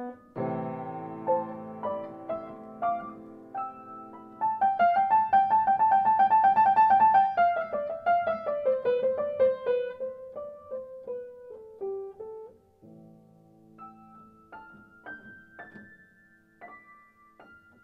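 Solo piano background music. A held chord gives way to a loud, fast run of repeated notes that then steps downward, and the piece thins to sparse, quieter high notes near the end.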